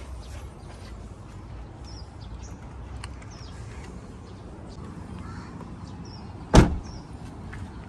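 Low steady background rumble with a few faint, short high chirps, broken by one sharp knock about six and a half seconds in.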